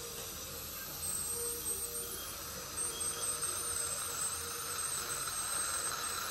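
Ultrasonic dental scaler working on the teeth: a high-pitched, wavering whine over a hiss of water spray, growing louder about a second in.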